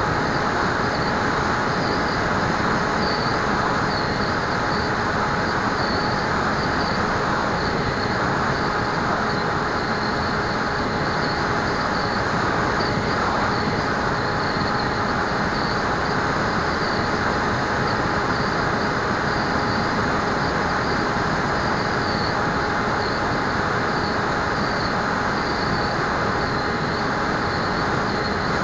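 Bixler model plane's brushless motor and propeller running at steady throttle, heard from onboard together with the rush of air: a constant whine over an even roar, without change.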